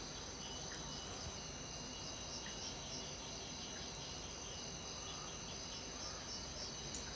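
Chorus of night insects: several steady high-pitched trills with short chirps repeating over them.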